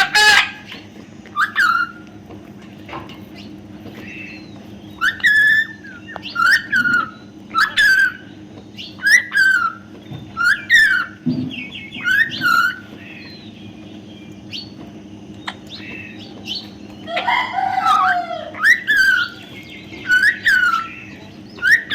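Baby parrot calling over and over: short shrill calls about one a second, each bending in pitch. About three-quarters of the way through comes one longer, lower call.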